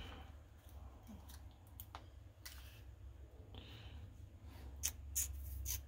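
A few faint, sharp clicks and brief rustles of small metal tools being handled: tweezers picked up beside a parts tray. A low steady hum runs underneath.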